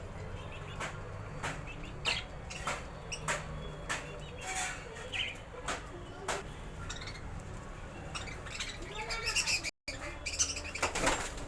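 Pet budgies chirping and squawking in short calls while they eat, with frequent sharp clicks from their beaks pecking at food.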